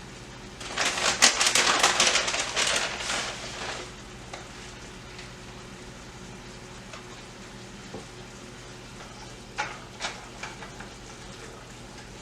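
Crackling of a plastic bag of shredded Colby Jack cheese as the cheese is shaken out for about three seconds, then a few short crinkles near the end.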